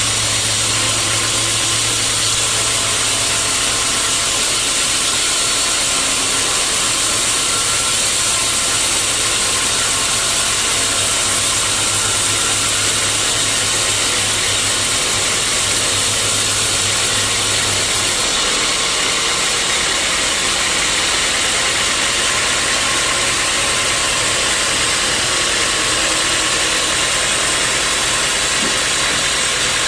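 Sawmill machinery running steadily, a dense hiss over a low engine hum; the hum drops out and the sound changes about two-thirds of the way through.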